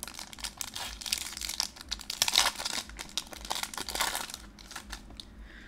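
Foil Pokémon booster pack wrapper crinkling as it is torn open and handled, a dense run of crackles that is loudest about halfway through.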